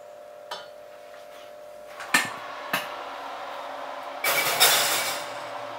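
Two sharp knocks about half a second apart, then a longer clattering scrape as the oven door is opened and a baking dish is slid in to preheat, with a steady hum underneath.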